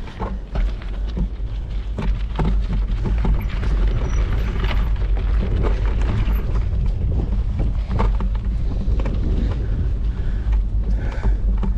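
Mountain bike riding over an unpaved dirt trail: a heavy, continuous low rumble of wind buffeting the microphone, with frequent clattering knocks and rattles from the bike jolting over rough ground.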